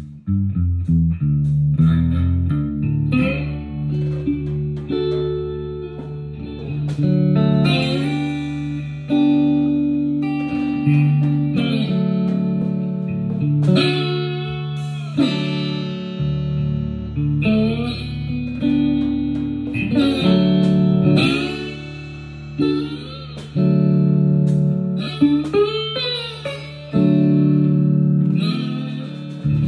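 Electric guitar playing a lead line of held notes, several of them bent upward, over steady low sustained notes.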